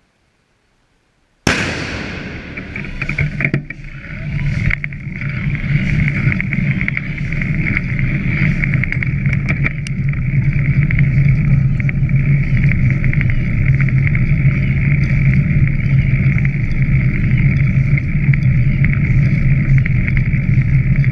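Steady rushing wind noise and rumble from a microphone carried quickly along the riverbank, starting abruptly about a second and a half in and growing louder over the next few seconds.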